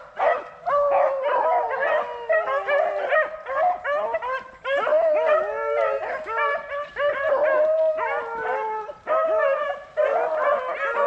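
A pack of beagles baying on a rabbit's scent trail after the jump, several dogs' voices overlapping almost without a break, some cries drawn out and bending in pitch.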